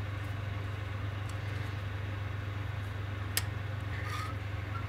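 Steady low hum, with light handling noise of small wire parts and one sharp click a little over three seconds in.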